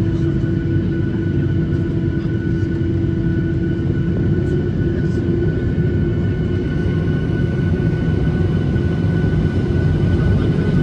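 Boeing 737 jet engines at low taxi power, heard inside the cabin: a steady low rumble with a steady whine over it, growing slightly louder near the end.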